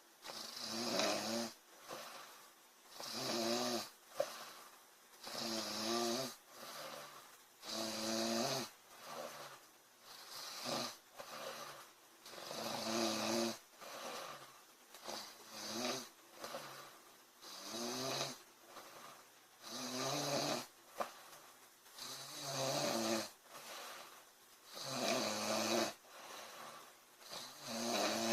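A woman snoring in her sleep, one snore every two to three seconds in a steady breathing rhythm.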